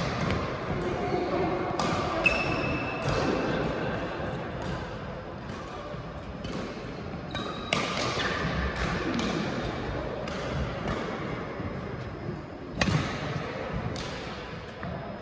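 Badminton rackets striking a shuttlecock during play, sharp cracks at irregular intervals with a short echo of a sports hall. There are a few brief squeaks of shoes on the court floor.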